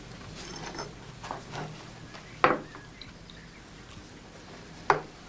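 Breakfast-table sounds of knife and china: light scraping and small clinks, then two sharp clinks, one about two and a half seconds in and one near the end.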